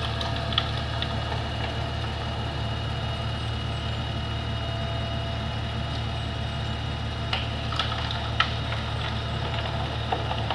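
Concrete transit mixer truck's diesel engine running steadily at idle: a low, even hum with a constant whine above it. A few sharp knocks come through, most of them between seven and nine seconds in.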